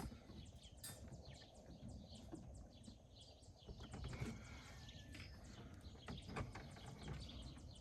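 Faint, scattered clicks and taps of hand work on parts and wiring, over a quiet background.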